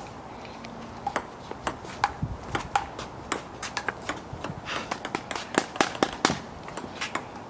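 Table tennis rally: the ball clicking back and forth off paddles and the table top in a quick, uneven run of sharp ticks, starting about a second in.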